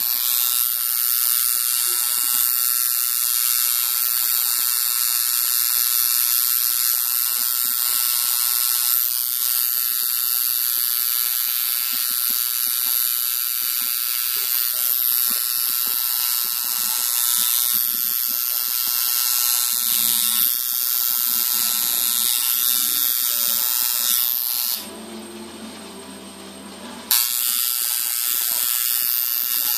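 Electric tattoo machine buzzing steadily as it inks a tattoo into skin. It stops for about two seconds near the end, then starts buzzing again.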